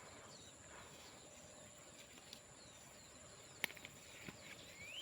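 Quiet rural ambience with a steady high-pitched insect drone. A single sharp click comes about three and a half seconds in, and near the end a bird starts a series of short rising chirps.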